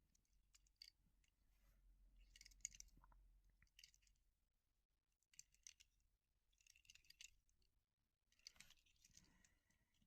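Near silence with faint clicks and light scraping in a few short clusters: small die-cast model cars being handled and set down on a table.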